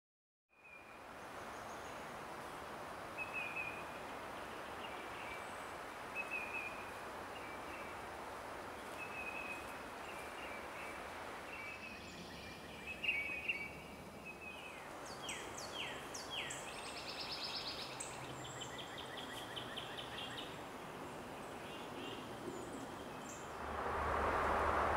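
Woodland ambience: a steady hiss under songbirds calling, with a short high call repeated every second or two through the first half, then quicker chirps and a buzzy trill. Near the end a louder rushing noise comes up.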